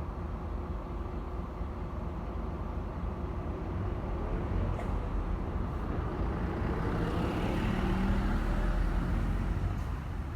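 Steady low rumble of an idling diesel locomotive engine. A passing vehicle swells over it, peaking about eight seconds in and easing off near the end.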